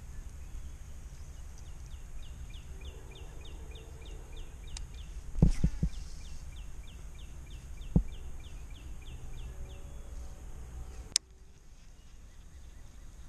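Baitcasting reel being cranked on a retrieve, ticking evenly about four times a second with short pauses, over wind rumbling on the microphone. A few sharp knocks of rod handling come in the middle, and a sharp click near the end.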